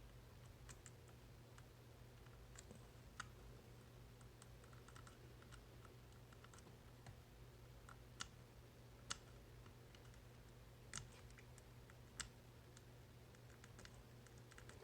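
Faint, scattered metallic clicks of a tubular lock pick working the pins of a coin bag's tubular lock, with a handful of sharper clicks among them, over a steady low hum.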